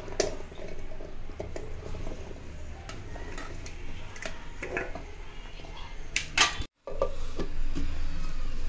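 Chopped Indian gooseberry and shallot pieces tipped from a steel plate into a steel mixer-grinder jar, with scattered clinks and knocks of plate, pieces and jar. The steel lid is then fitted onto the jar, with a sharper clank about six and a half seconds in.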